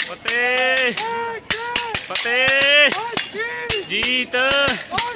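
Repeated sharp clacks of gatka sticks striking each other and small round shields in sparring, several a second. Over them run loud, drawn-out voice-like notes that arch up and down in pitch.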